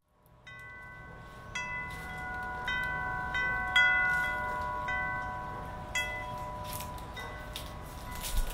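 Chimes struck one at a time, roughly once a second, at several pitches, their bell-like tones ringing on and overlapping as an opening music piece; the loudest strike comes about four seconds in.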